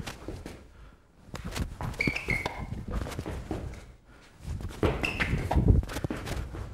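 Quick sneaker footsteps on a hard, smooth floor in two rapid bursts of steps, about a second in and again about four and a half seconds in, with short shoe squeaks: the darting footwork of an agility drill.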